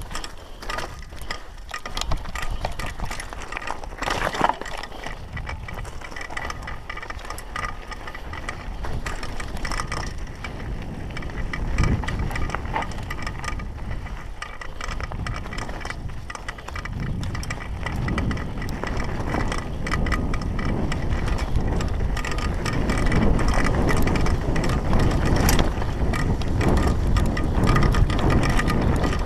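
Downhill mountain bike descending a rocky dirt trail: tyres crunching over rocks, with the chain and bike rattling and sharp clicks and knocks from the hits. A low rushing noise grows louder in the second half as the bike picks up speed.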